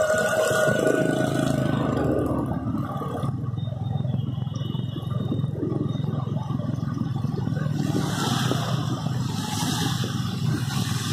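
Motorcycle engine running steadily while riding through flood water, with the hiss of water sprayed by tyres and passing traffic; the splashing hiss grows louder about eight to ten seconds in.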